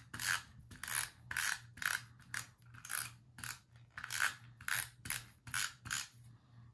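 Adhesive tape runner being pulled across chipboard in short repeated strokes, about two a second, its take-up gears clicking as the adhesive is laid down.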